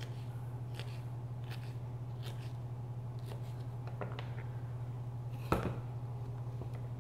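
Knife chopping red pepper on a plastic cutting board: light, sparse taps about once a second, with one louder knock near the end. A steady low hum runs underneath.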